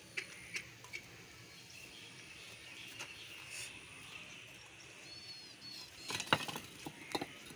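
Quiet outdoor background with a bird chirping two or three times about five seconds in. Scattered sharp knocks of bricks being handled on a brick pile come a few at the start and a cluster near the end, the loudest about six seconds in.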